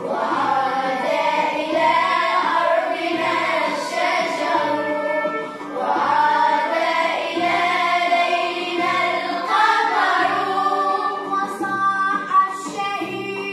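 Children's choir singing a song together over an instrumental backing with a steady low beat.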